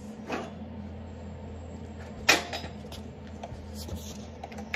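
A steady low hum with a few sharp knocks or clunks. The loudest comes a little past two seconds in, a smaller one near the start and another near the end.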